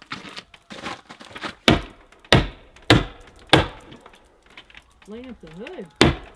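A hammer stapler being struck against housewrap over a wooden wall, each whack driving a staple with a sharp crack. There are four strikes a little over half a second apart, a brief pause with a person's voice sliding up and down, and another strike near the end.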